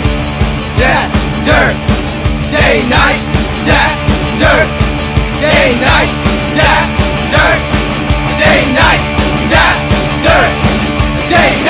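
A rock band's song playing, with a driving drum beat under short, repeated melodic phrases.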